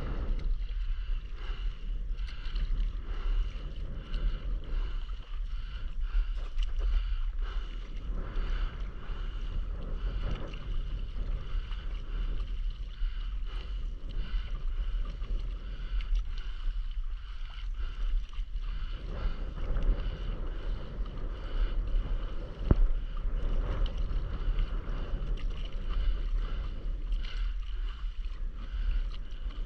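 Wind on the microphone making a steady low rumble, with water lapping and sloshing around a stand-up paddleboard as it moves along on the sea.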